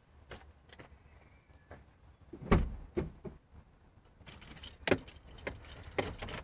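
A string of knocks and clicks from a car door and its interior as someone gets in, the loudest a door thud about two and a half seconds in, with keys jangling a little after four seconds.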